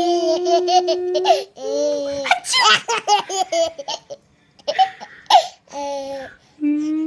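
Baby girl laughing hard in repeated choppy bursts, set off by fake sneezes. Long, drawn-out held voice tones come at the start and again near the end.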